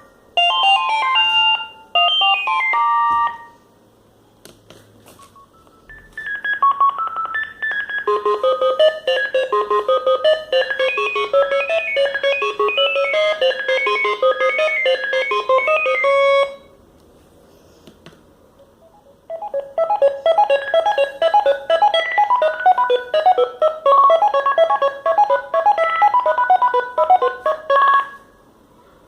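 Sagem MW 3022 mobile phone playing its built-in ringtones as electronic melodies. One tune ends about three seconds in, and two more follow, each about ten seconds long, with short pauses between them.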